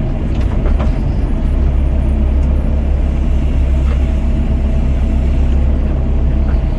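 Doosan DX55 mini excavator's diesel engine running steadily at working speed while it bails water. A few light knocks come about half a second in, near one second and around four seconds.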